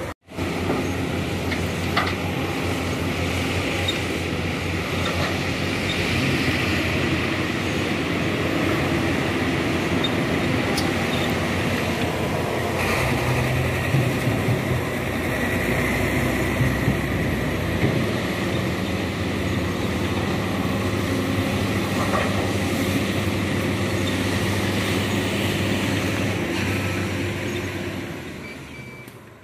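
Heavy diesel engines of a Caterpillar hydraulic excavator and a dump truck running steadily while the excavator loads soil into the truck, with a few knocks along the way. The sound drops out for a moment right at the start and fades out near the end.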